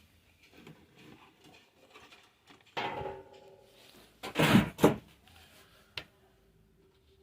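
Handling noises from the amplifier being worked on: a short scraping sound about three seconds in, then two loud knocks close together, and a single sharp click a little later.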